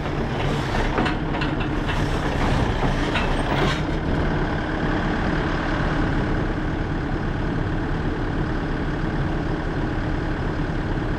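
Diesel engine of a 6.5-ton mini excavator running steadily, with a few knocks in the first few seconds.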